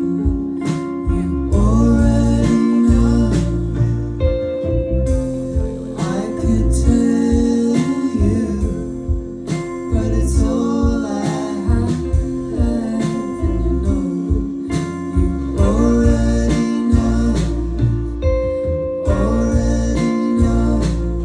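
Indie rock band playing live: guitar, bass and drums with a sung vocal.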